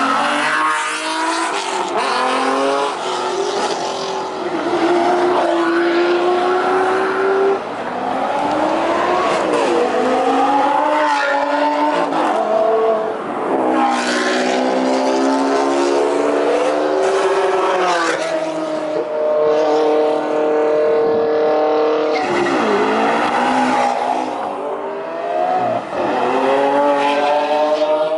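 Supercar engines, among them a Ferrari F50 and a Lamborghini Diablo, revving loudly and accelerating away one after another. The pitch climbs as each car pulls through a gear and falls back at each shift.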